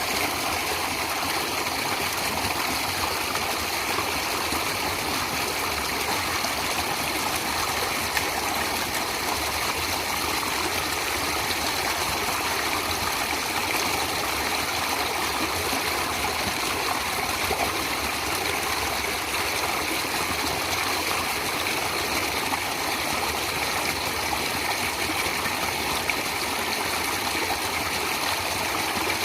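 A natural stream flowing steadily, water rushing and trickling over rocks.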